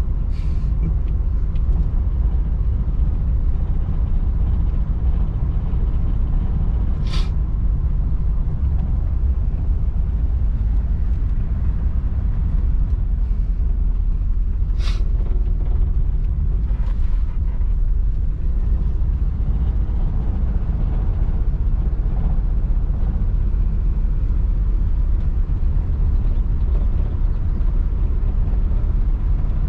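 Old Chevrolet car driving along, its engine and road noise a steady low rumble heard from inside the car, with two sharp clicks about seven and fifteen seconds in.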